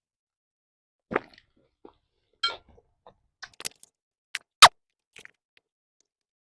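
Close-up mukbang eating sounds of someone chewing pempek: irregular short wet mouth clicks and smacks with quiet gaps between them, the sharpest click about two-thirds of the way in.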